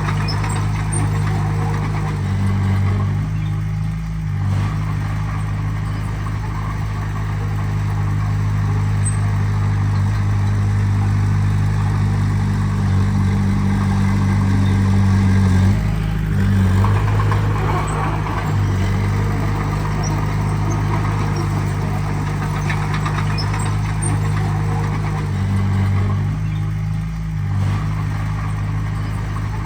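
Heavy diesel engine of earthmoving machinery running steadily, its pitch shifting briefly three times: about four, sixteen and twenty-seven seconds in.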